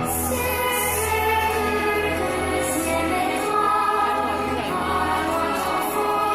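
Orchestral show music with a choir singing, played loud over the park's speakers.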